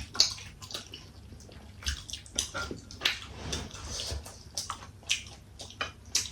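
Close-up wet eating sounds of momos being chewed: irregular mouth smacks and squelchy clicks.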